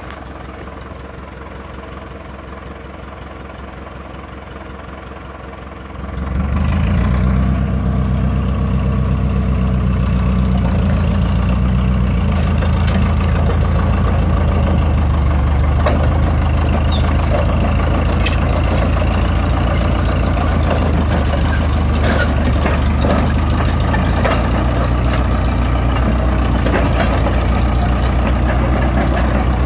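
International Harvester TD-9 crawler dozer's diesel engine idling, then throttled up about six seconds in and running steadily as the dozer crawls forward, with clanking from the steel tracks.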